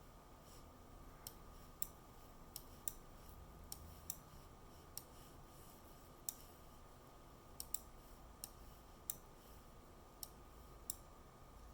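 Gigabyte GTX 1660 Ti Windforce graphics card making faint, irregularly spaced clicks, about fifteen, like a hard drive seeking, over a faint steady tone. The owner takes it for an electrical noise, not fan noise, that occurs while the card's fans are spinning.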